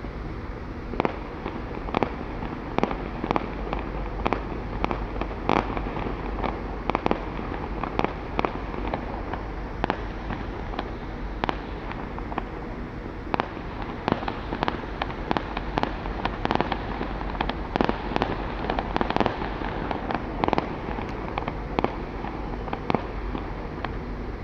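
Fireworks going off: a long run of sharp bangs at irregular intervals, sometimes several a second, over a steady background noise.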